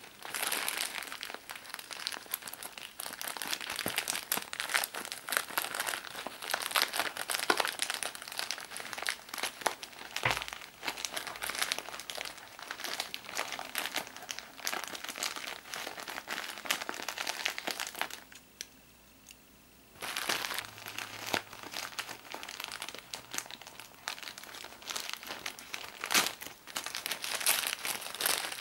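Grey plastic mailer package crinkling and rustling as it is handled and opened by hand, with a break of about two seconds around two-thirds of the way through.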